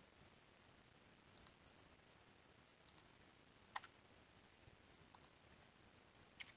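A handful of faint computer mouse clicks, several in quick pairs like double-clicks, the loudest pair a little under four seconds in, over near-silent room tone.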